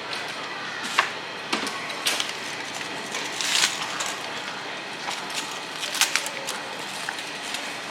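Store background noise with scattered clatters and clicks from goods and a shopping cart being handled, a handful of sharp knocks standing out.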